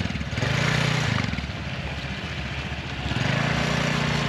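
Motor scooter engine running while riding along, its hum swelling and easing a couple of times under a steady rush of noise.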